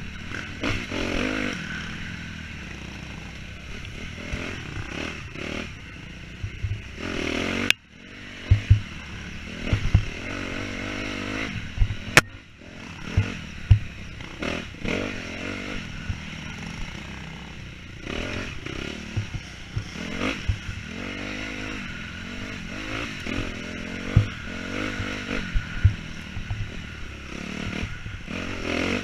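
Dirt bike engine being ridden hard, its pitch rising and falling with the throttle, with frequent short thumps and clatter from the bike over rough ground. The sound drops away sharply for a moment twice in the first half.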